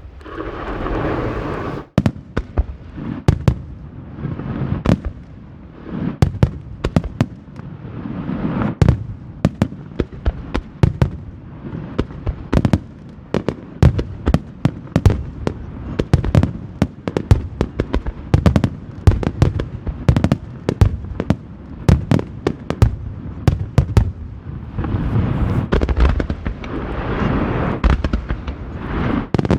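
Aerial firework shells bursting in rapid succession in a finale barrage: dozens of sharp booms, often several a second, over a continuous echoing rumble. A swell of dense hissing noise rises near the start and again near the end.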